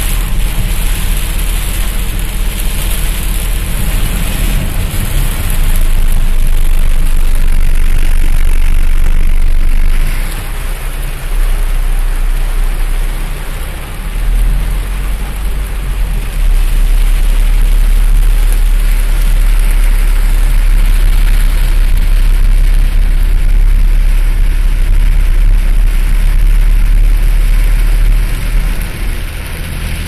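Heavy rain hitting a car's roof and windshield, heard from inside the cabin, over a constant deep rumble. The downpour grows louder about six seconds in, eases around ten seconds in, and picks up again at about sixteen seconds.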